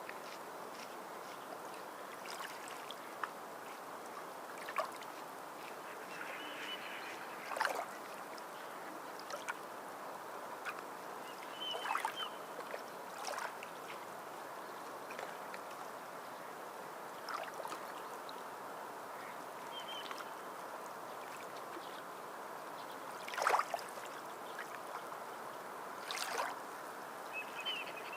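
Water lapping and splashing now and then over a steady wash of moving water, with a few short, high chirps.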